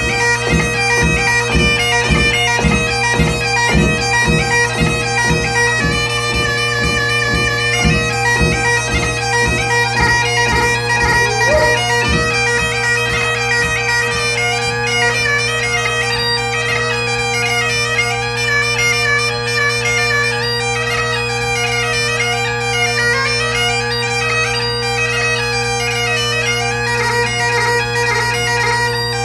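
Bagpipes playing a tune: the chanter melody moves above the unbroken drone chord. A steady pulse of about two beats a second runs under the first half, then the melody flows on more smoothly.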